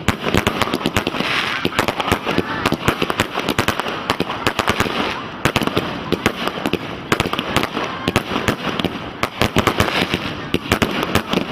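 Firework display barrage: a dense, rapid run of sharp bangs and crackles, many per second.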